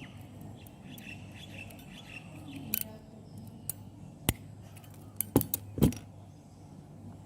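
A cutter snipping the ends of a network cable's twisted-pair wires to length: a handful of sharp clicks and snips starting about three seconds in, with faint bird chirps in the background.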